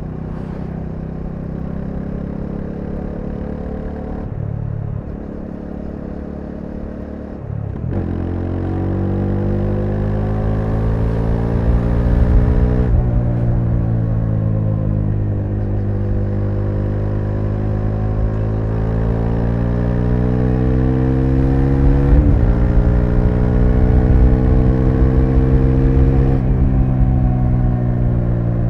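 Bajaj Dominar 400's single-cylinder engine running under way. It holds a steady note at first, then accelerates through the gears: the revs climb, fall sharply at an upshift about halfway through, climb again, fall at a second upshift about three-quarters through, and ease off slightly near the end.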